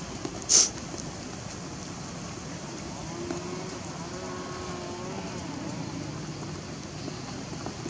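Baby long-tailed macaque giving a thin, wavering cry for about two seconds, starting about three seconds in, over a steady background hiss. A short sharp hiss sounds about half a second in.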